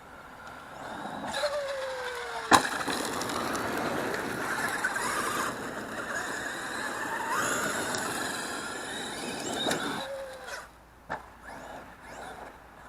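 Electric RC monster truck driving, its motor whine rising and falling in pitch with the throttle over tyre noise, with one sharp hard impact about two and a half seconds in. The motor sound dies away near the end, followed by a short knock.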